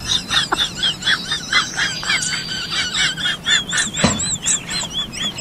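Baby macaque giving a fast series of shrill squeaks and chirps, about four or five a second, in distress, with one short lower cry about four seconds in.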